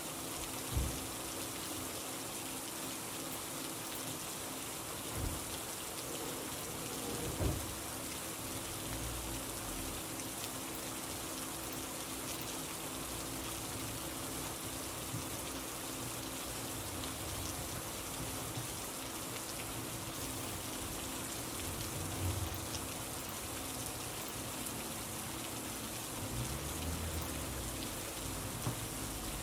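Steady rain falling, an even hiss of drops, with a few soft low thumps now and then.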